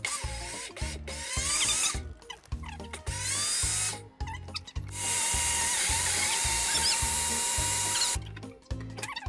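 Electric blender running in three bursts, short, short, then about three seconds long with a steady whine, blending spinach-banana pancake batter. Background music with a steady beat plays underneath.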